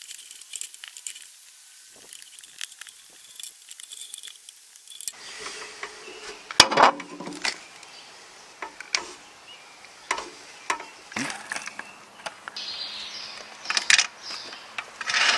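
Plastic clicks and snaps as an old sharkfin backup camera's plastic housing is pried off an RV's side wall, with one sharp snap about six and a half seconds in, followed by handling noises and a screwdriver at work near the end.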